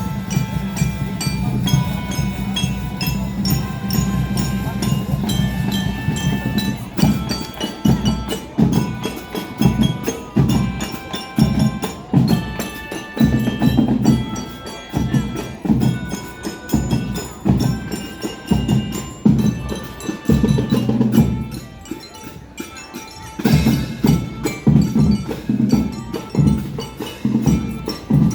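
Marching band playing, with bell-like mallet percussion carrying the melody over drum beats. The drums drop out briefly about three-quarters of the way through, then come back strongly.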